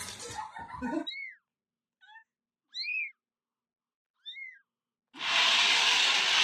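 A cat meowing: four short meows, each rising then falling in pitch. About five seconds in, a loud steady rushing noise starts.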